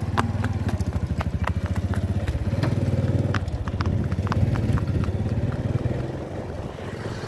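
A motorcycle engine running at low road speed, its rapid firing pulse steady and easing off near the end, with a horse's shod hooves clip-clopping on the asphalt over the first few seconds.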